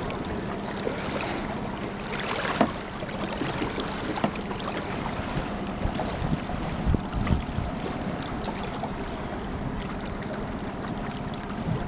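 Water rushing and lapping along the hull of a small boat under way, with a faint steady hum beneath it and one louder splash-like burst about two seconds in.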